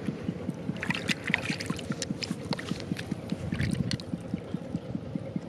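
Hands splashing and swishing in shallow muddy water, with small drips and splashes strongest around a second in. A steady low putter of a small engine runs underneath.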